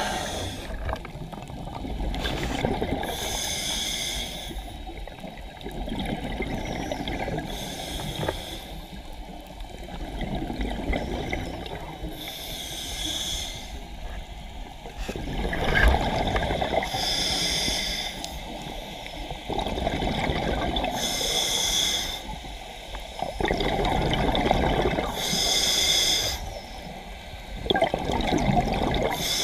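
Diver breathing underwater through a scuba regulator: a short hiss on each inhale and a longer rush of exhaled bubbles, repeating about every four seconds.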